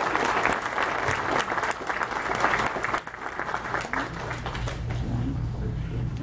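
Audience applauding with many hands clapping, fading out about three seconds in.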